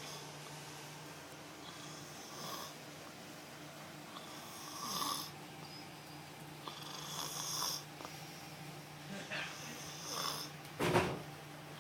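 Snoring in sleep: slow, regular snoring breaths about every two and a half seconds, with a louder one near the end.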